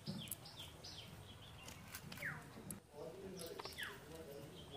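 Birds calling: a quick run of short, falling chirps at the start, then two longer whistled notes that slide downward, with scattered faint clicks.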